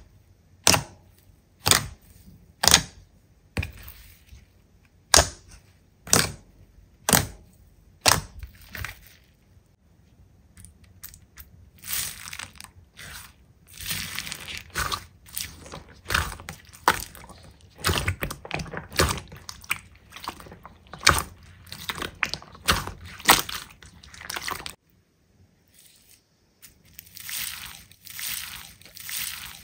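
Slime being played with by hand: sharp pops about once a second at first, then a denser run of quick clicks and crackles that stops abruptly, and softer clicking near the end.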